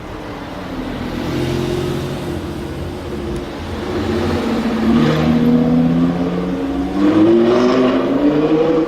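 Sports car engine accelerating hard, its pitch climbing through the gears with a brief drop at each upshift, about three seconds in and again about seven seconds in, getting louder toward the end.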